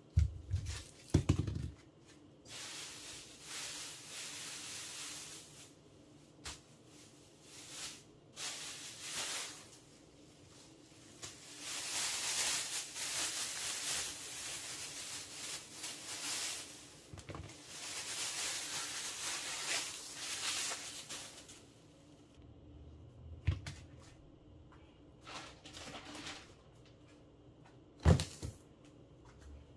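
Produce being set down on a granite countertop: sharp knocks and thumps, the loudest just at the start and once near the end, between long stretches of rustling as the items are handled.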